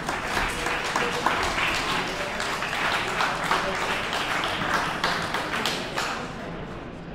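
Audience applauding with a dense patter of claps that fades out about six seconds in.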